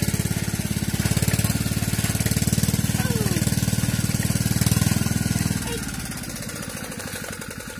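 A small engine running with a rapid, even chugging. It drops noticeably in level about two-thirds of the way through and keeps running more quietly.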